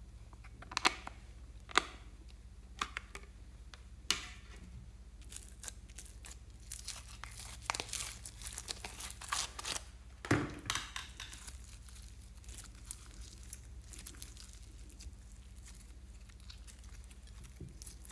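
A few sharp plastic clicks as a slime container is opened, then crackling and tearing as red slime full of foam beads is pulled out and stretched apart, with a dull thump about ten seconds in. Only faint, scattered crackles follow as the slime is pressed down.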